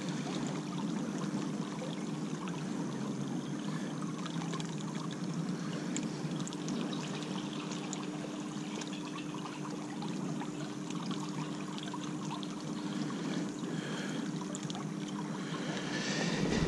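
River water running and trickling steadily around a canoe, with a faint steady low hum underneath.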